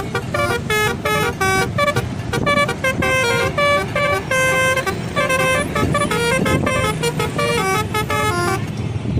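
Indonesian bus telolet horn playing a fast melody of short, shifting notes, over a low rumble; the melody stops near the end.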